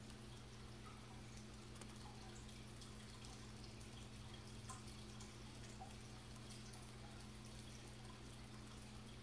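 Near silence: room tone with a steady low electrical hum and a few faint, scattered ticks.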